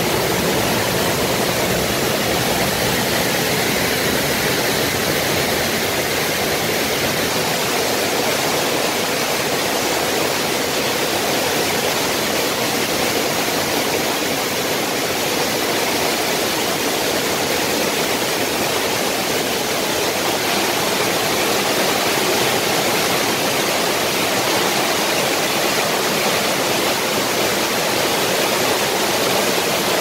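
Cyclone floodwater rushing and foaming down a flight of stone steps: a steady, unbroken rush of water.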